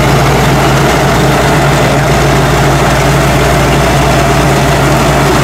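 Tracked rice combine harvester running steadily while cutting and threshing rice, its engine and threshing machinery giving a loud, continuous drone with a steady low hum.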